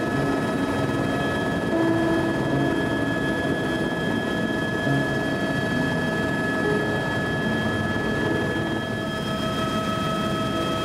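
Helicopter in flight heard from inside the cabin: a steady rush of turbine engine and rotor noise, with a constant high whine over it.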